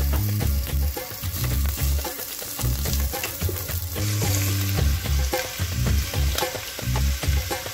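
Diced onion and garlic sizzling in hot fat in a pot while being stirred, with small clicks of the spoon. Background music with a steady bass line plays underneath.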